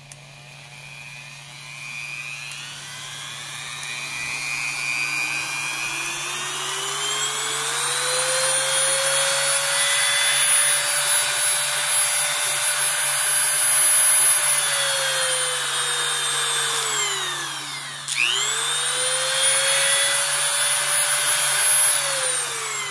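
Dremel MultiPro 395 Type 6 variable-speed rotary tool, its brushed motor running with no chuck fitted. The motor whine climbs slowly from a low speed to full speed, holds steady, winds down almost to a stop about three quarters of the way through, then spins straight back up to full speed and winds down again near the end. It runs smoothly.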